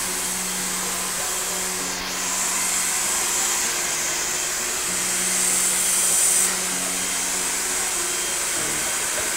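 Handheld hair dryer blowing steadily on hair being brushed. Its rush of air grows louder about two seconds in and drops back about two-thirds of the way through.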